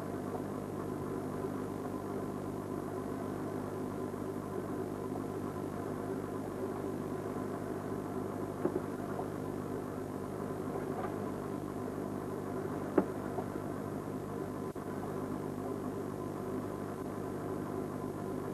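Fishing boat's diesel engine running with a steady drone, with a couple of brief clicks partway through.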